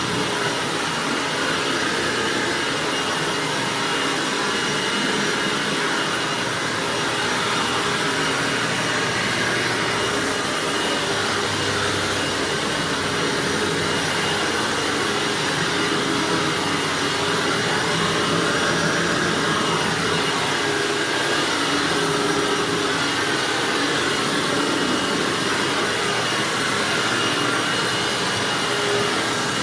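Self-propelled bagged Hoover WindTunnel upright vacuum running steadily as it is pushed over carpet, with a thin high whine held over the motor's rush.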